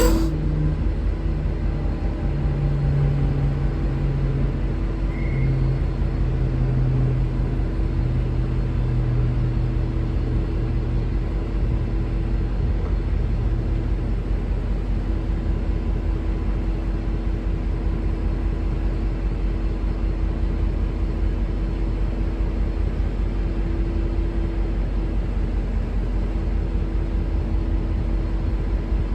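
V/Line N class diesel-electric locomotive N460 running at low power with a steady low rumble and a constant hum. Its engine note eases a little lower over the first ten seconds or so.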